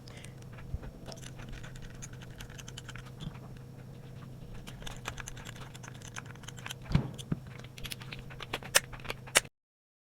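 Small metal parts and tools clicking and scraping as an Aimpoint ACRO P2 red dot and its mounting plate are fitted to a pistol slide. It is a run of light ticks, with a few sharper clicks near the end before the sound cuts off abruptly.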